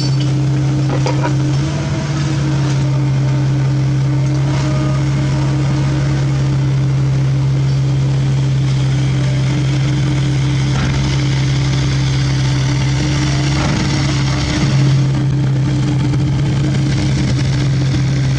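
CAT mini excavator's diesel engine running steadily at working speed while the arm swings and dumps a load of stump roots into a truck bed. It is a constant, even drone, with a small change in pitch about two seconds in and again about fifteen seconds in.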